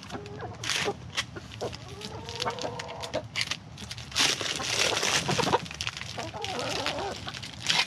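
Chickens clucking close by, while plastic wrap crinkles and rustles as it is cut and peeled off a compressed seed feed block, loudest around the middle.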